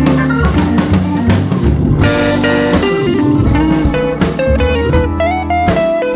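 Background music: a bluesy guitar melody over drums.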